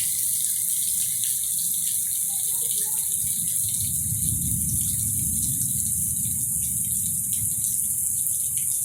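Rain falling steadily: a continuous hiss with a low rumble underneath.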